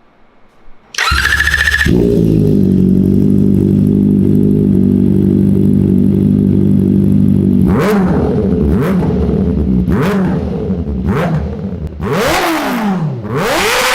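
Kawasaki ZX-4RR's 399 cc inline-four engine cranked on the starter and catching about a second in, then idling steadily. From about eight seconds the throttle is blipped four times in short, sharp revs, followed by a longer rev that falls back and a second rev held high near the end.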